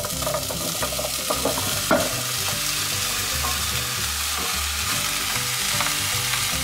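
Diced potato and pumpkin hitting hot oil in a frying pan and sizzling steadily, with a few knocks of the pieces and the spatula in the first two seconds as they are tipped in, then stirred.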